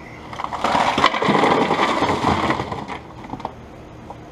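Ice cubes and crappie dumped out of a drink cooler into a laundry sink: a loud clattering, sliding rush that starts about half a second in and lasts about two and a half seconds.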